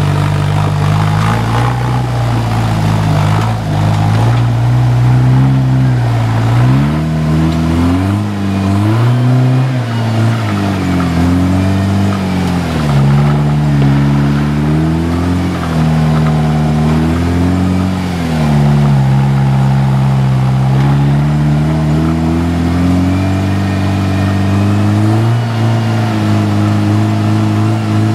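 Engine of a caged Jeep rock crawler running under load as it climbs over boulders. It holds steady for the first few seconds, then revs up and down again and again as the throttle is worked.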